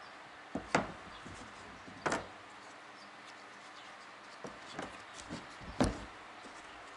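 Engine pistons handled and set down on a rubber work mat: three separate knocks, the last and loudest near the end, with a few lighter clicks shortly before it.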